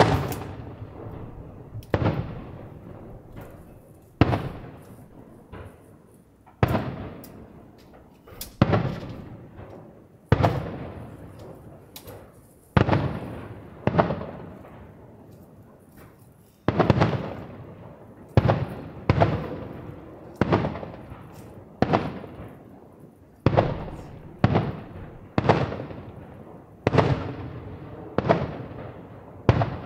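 Aerial firework shells bursting one after another, a sharp bang every second or two, each trailing off in a long echoing rumble. There is a short lull about halfway through, then the bursts come faster.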